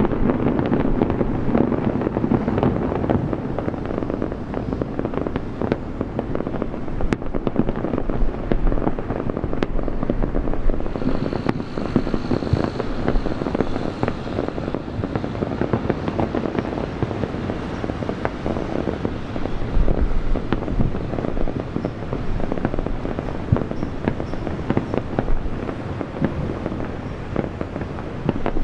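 Aerial fireworks bursting in a dense, unbroken crackle, with a few deep booms from large shells.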